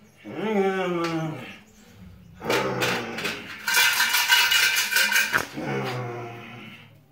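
A man's voice making drawn-out, wordless guttural calls, with a harsher, raspy stretch in the middle that is the loudest part.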